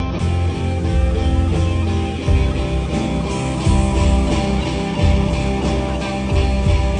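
Guitar music with a steady, heavy bass line and a beat.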